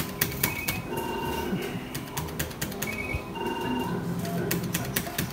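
An electronic bingo machine's game sounds as a round plays: short electronic beeps in repeated groups and rapid clicks, over steady low background noise.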